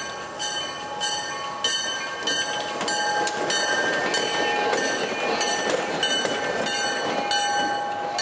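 EMD SW1200 switcher locomotive passing close by at low speed, its bell ringing steadily about twice a second. The diesel engine and wheels are loudest in the middle of the pass.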